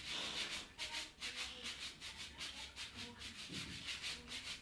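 A hand scrubbing brush rubbed hard back and forth over a wet sweater, in rapid rasping strokes about three a second, stopping near the end.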